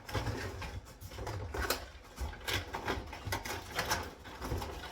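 Plastic radio-control car handsets being handled on a bench: a run of irregular clicks and knocks of hard plastic.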